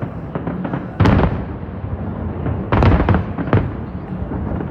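Aerial fireworks bursting: a loud bang about a second in, then a quick cluster of bangs near three seconds, over a steady low rumble of further explosions.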